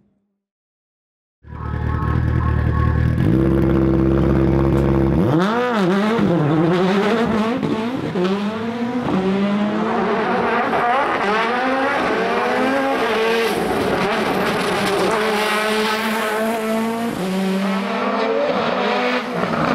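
Turbocharged four-cylinder boxer engine of a 610 hp Subaru Impreza GC8 hillclimb car. After a second or so of silence it comes in at steady revs, then from about five seconds in revs up and down again and again through gear changes while driven flat out.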